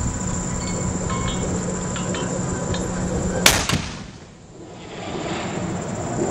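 Two sharp bangs of combat fire a fraction of a second apart, about three and a half seconds in, over a steady low rumble and hum; right after them the sound drops away for about a second and builds back.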